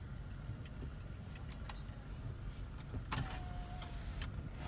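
Parked car idling, heard from inside the cabin as a steady low rumble, with a few light clicks and a brief faint hum about three seconds in.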